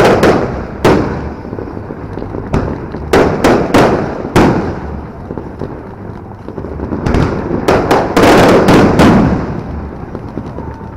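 Fireworks going off: clusters of sharp, echoing bangs, first a few right at the start, then a quick run of four or five a few seconds in, and a denser volley near the end.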